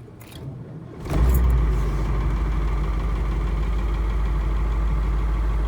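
A 1982 Blue Bird Wanderlodge motor coach's engine cold-started with the key: it fires about a second in, peaks briefly, then settles into a steady idle.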